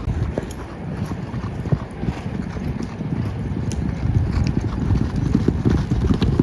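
Hoofbeats of a racehorse galloping on the track during a workout, a rapid run of dull thuds that grows louder toward the end.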